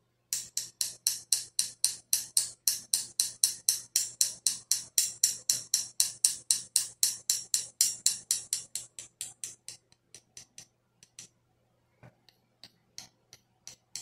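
Two thin wooden sticks tapped against each other in a quick, even rhythm of about five light clicks a second, imitating the sound of rain. After about nine seconds the taps thin out and grow fainter.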